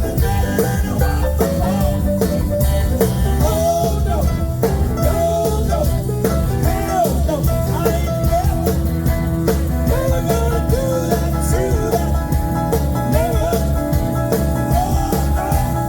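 Live blues band playing an instrumental passage: a lead instrument bending notes over bass and a steady drum beat.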